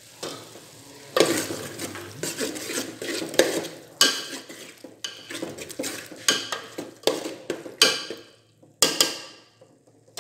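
Metal spoon stirring and scraping a thick tomato-onion gravy in a metal cooking pot, with repeated clinks and knocks of the spoon against the pot. It starts about a second in and dies away shortly before the end.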